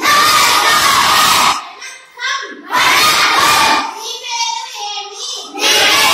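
A class of children chanting Tamil words loudly in unison, three times, repeating after a single voice that leads quietly in the gaps between.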